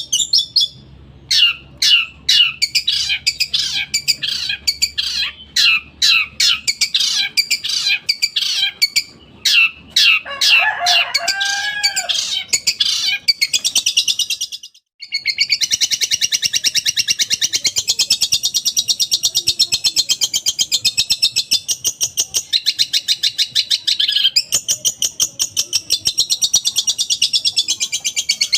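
A long-tailed shrike (cendet) singing a loud, fast, varied song. The first half is a quick run of sharp high notes, with a few lower gliding notes in the middle. After a brief pause about halfway, a rapid continuous high trill follows, broken once shortly.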